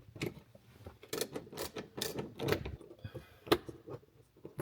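Irregular clicks and knocks of something being handled, with one sharp knock about three and a half seconds in.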